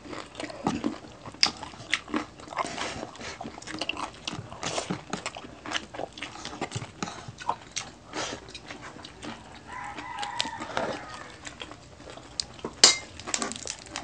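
Close-up eating sounds: chewing and crunching of crispy pata (deep-fried pork knuckle) and rice eaten by hand, with many small mouth clicks. A sharp crack near the end is the loudest sound.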